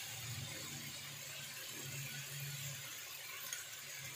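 Faint steady sizzle of diced chicken frying in ghee in a pan, with a low hum underneath.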